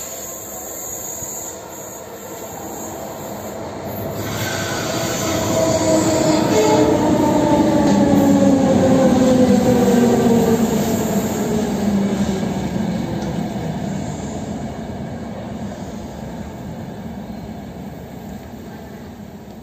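ÖBB Class 4020 electric multiple unit pulling in and slowing to a stop: a rushing rumble that swells to a peak midway and then fades, with a whine that falls steadily in pitch as the train slows.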